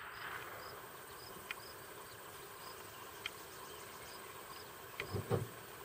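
Insects chirping steadily in a summer field: short high chirps repeating every half second or so over a faint hiss. A few faint clicks, and a brief low sound about five seconds in.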